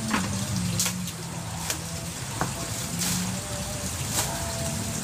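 Water splashing steadily into a garden fish pond, with plastic packaging crackling in short bursts as a parcel is pulled and torn open.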